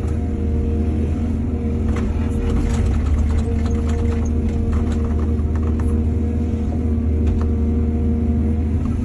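Excavator's diesel engine running steadily with a deep rumble. A run of short knocks and clatters from about two seconds in to a couple of seconds before the end, typical of soil and stones tumbling or the bucket working.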